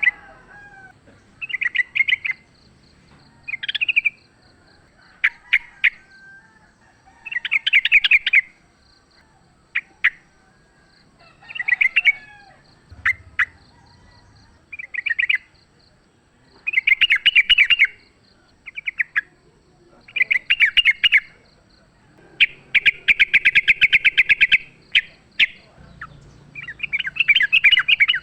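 Yellow-vented bulbul (trucukan) singing its fast, rattling fighting song in repeated bursts of rapid bubbling notes, with short pauses between. The longest burst runs about three seconds, starting a little past twenty seconds in.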